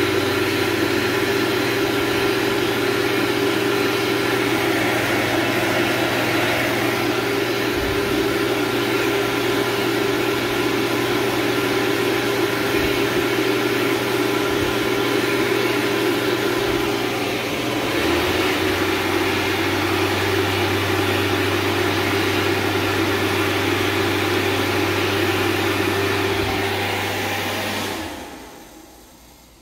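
Bobrick Eclipse B-748 hand dryer's blower running, a steady hum over a rush of air. Its pitch sags and climbs back up about eighteen seconds in, and near the end it shuts off and the sound falls away within a second or so.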